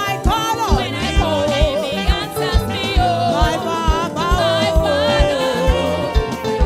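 A woman singing a gospel praise song into a microphone, with band accompaniment and a steady drum beat about two to the second.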